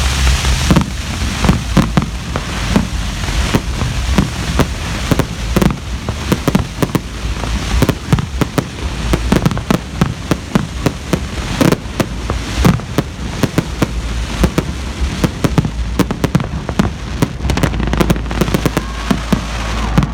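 Fireworks going off all around in a steady, irregular barrage of bangs and pops, several a second.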